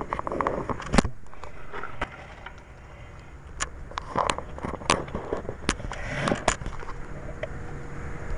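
Scattered knocks, clicks and scrapes of a birdhouse and its rope being lowered from a window, with one sharp knock about a second in, over a low steady rumble.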